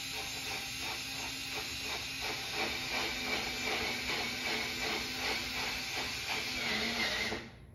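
Power drill driving a screw through vinyl J-channel into the wall, running steadily for several seconds and stopping abruptly near the end.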